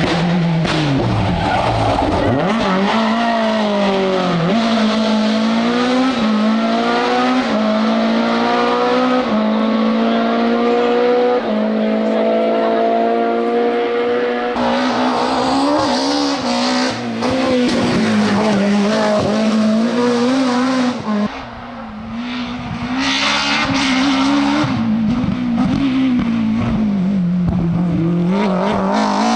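BMW M3 E30 Group A rally car's four-cylinder engine driven flat out, revs climbing through several gears in the first half. It lifts off briefly about two-thirds of the way through, then pulls hard again with the revs rising and falling.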